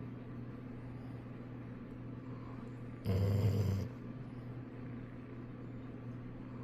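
A sleeping golden retriever snoring: one loud, low snore about three seconds in, lasting under a second.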